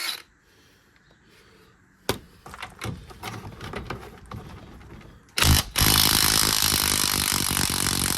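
Metal tools clanking against each other, then about five seconds in a power tool starts and runs loud and steady on a rusted subframe bolt.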